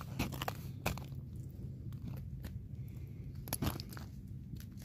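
Footsteps crunching on snow-crusted lake ice, a few irregular crunches that thin out through the middle and pick up again near the end, over a low steady rumble.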